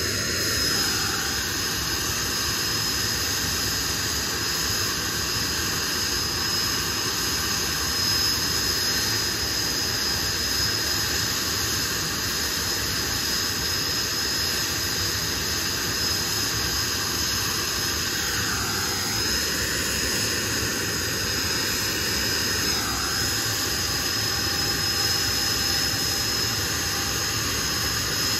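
Blackburn Buccaneer S.2's twin Rolls-Royce Spey turbofans running steadily as the jet taxis, a loud jet whine with a high-pitched ringing tone over a broad rush.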